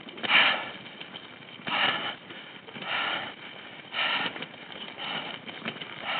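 A cyclist breathing hard and rhythmically, about one loud breath a second, from the effort of pedalling a heavily loaded bike.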